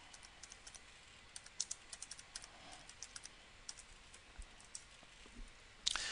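Computer keyboard keys typed in an uneven run of faint clicks. A louder key press near the end commits the entry with the Enter key.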